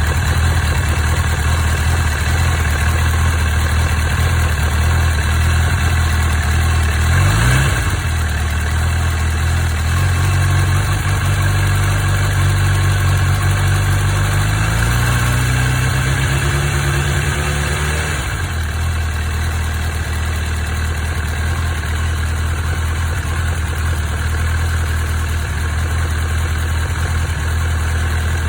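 Honda CB1000R inline-four engine idling with a ticking noise whose cause the owner does not know. It is blipped briefly about seven seconds in, then revs rise slowly from about fifteen seconds and drop back to idle about eighteen seconds in.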